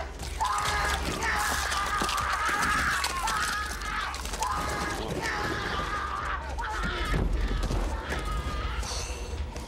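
High-pitched screaming in several long cries, each held for a second or more, with scattered crashes and thuds over a steady low rumble.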